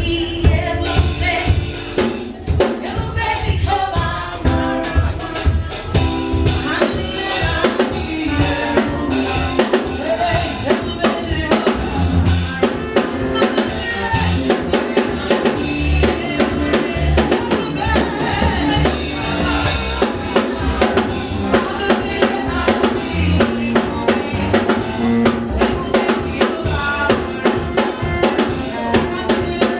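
Upbeat music driven by a drum kit, with bass drum, snare and rimshots keeping a fast steady beat under a pitched melody line.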